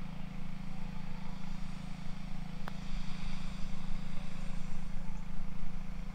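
A steady low mechanical hum, with one light tap a little under three seconds in, which fits a putter striking a golf ball.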